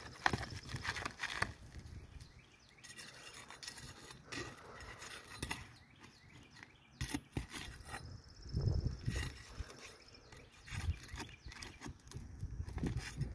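Flat pry bar scraping under asphalt shingles and prying them up, with irregular scrapes, crackles and knocks as the tabs are lifted loose.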